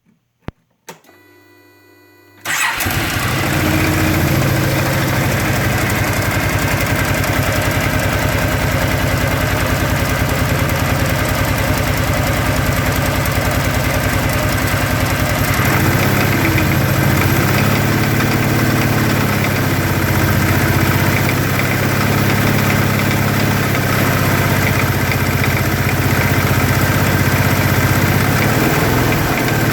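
Kawasaki Teryx FI 4x4 LE V-twin engine starting after a click and a faint hum, catching about two and a half seconds in and then idling steadily. It has a knock that the owner cannot place, in either the engine or the clutch.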